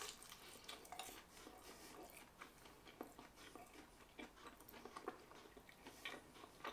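Faint chewing of a bite of grilled Gouda cheese patty, crisp outside and soft inside, heard as small irregular mouth clicks.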